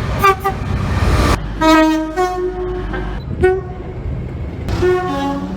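Train two-tone horns sounding a series of blasts: short toots, then longer two-note blasts, over the low rumble of a train.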